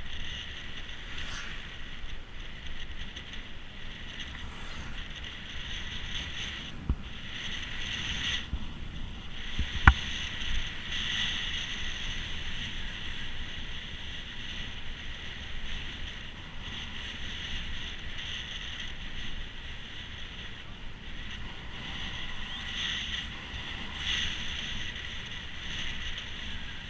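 Mountain bike riding off-road: a steady low rumble of wind on the microphone and bumps in the trail, under a steady high hiss. There are two sharp knocks, the louder one about ten seconds in.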